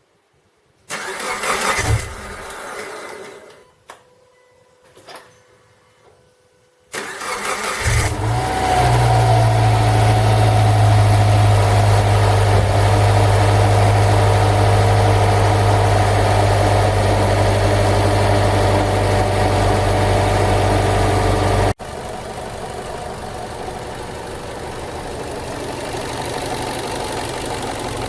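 Subaru EJ204 2.0-litre flat-four boxer engine, first start after a timing-belt kit replacement: a short burst of noise about a second in, then about seven seconds in it cranks, catches and settles into a steady fast idle. About 22 seconds in the sound drops abruptly to a lower level and the engine runs on. The engine has a knock which the owner puts down to the timing-belt tensioner.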